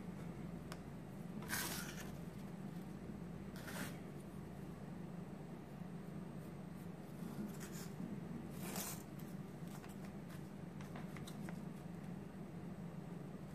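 Small wooden pieces handled and a pencil marking the center on one: a few brief scratchy, rustling handling sounds and faint ticks over a steady low hum.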